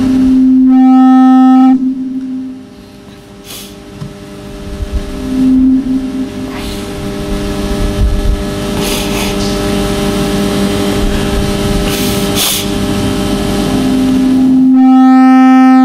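Microphone feedback through a public-address system: a loud, steady low howl at one pitch that swells twice, about a second in and again near the end. Between the swells there is quieter room noise with a few short clicks.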